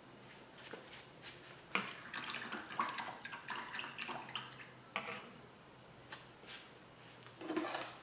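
A paintbrush being swished and tapped in a jar of water, with irregular splashes and clinks in two bursts, the longer one about two seconds in and a shorter one near the end.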